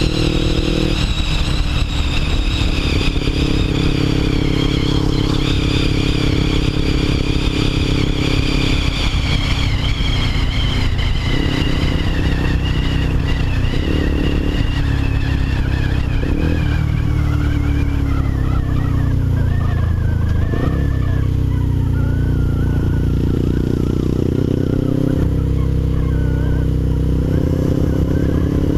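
1998 Suzuki GS500's air-cooled parallel-twin engine running loud through a Delkevic 200 mm aftermarket exhaust, with several short throttle blips. A fainter high tone slowly falls in pitch through the middle.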